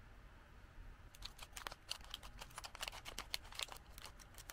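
Scissors snipping open a plastic snack bag: a quick run of crisp clicks and crinkles that starts about a second in.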